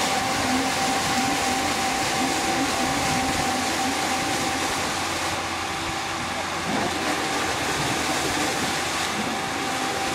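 Aquatic weed harvester under way: its engine running and its side paddle wheel churning the water in a steady splashing, with a steady high whine over it.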